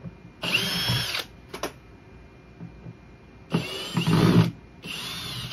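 Power drill backing out the screws of a speaker cabinet's corner braces, running in three short bursts: one just under a second in, then two close together from about three and a half seconds in. Its motor whine rises as each burst starts, with a couple of light taps between the first and second.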